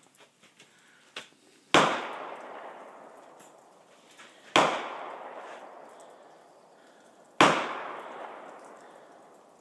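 Three loud gun reports about three seconds apart, each followed by a long fading echo.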